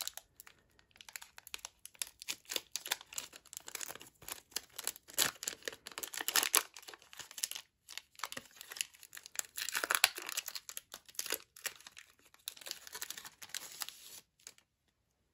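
Foil trading-card pack wrapper being torn open and peeled apart by hand: irregular crinkling and tearing, loudest around ten seconds in, dying away shortly before the end.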